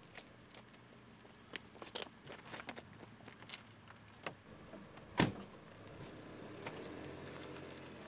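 Scattered clicks and knocks, with one loud knock about five seconds in, followed by a low steady hum.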